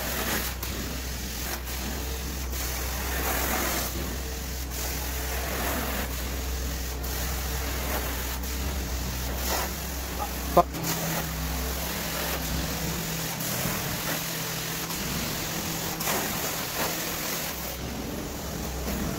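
Carpet-cleaning machine running with a steady low drone, and a single sharp click about ten and a half seconds in.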